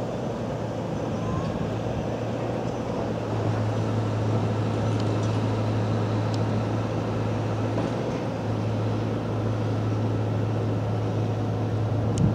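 Steady city ambience of distant traffic, an even wash of noise with a constant low hum beneath it and a few faint ticks.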